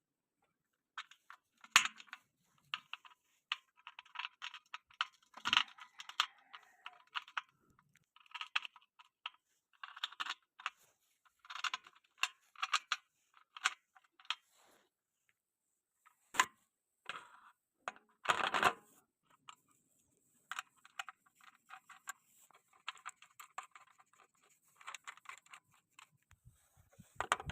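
Irregular clicks, scrapes and rattles of tools and parts being handled, broken by a few sharper knocks, with short pauses between bursts.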